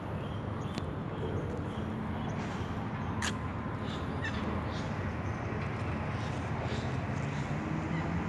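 Farm birds giving short, harsh calls, the clearest about one and three seconds in, over a steady low hum.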